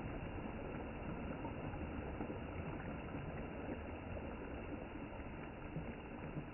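Steady shoreline noise of small waves lapping on a pebble shore, with wind on the microphone.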